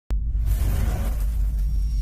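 Intro logo sting: a deep rumble under a rushing whoosh, with music, starting suddenly right at the beginning.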